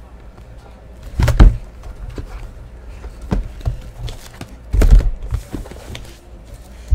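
Sealed cardboard hobby boxes of Panini Prizm basketball cards being handled and set down on a table: a handful of dull thumps and knocks, the loudest about a second in and again about five seconds in.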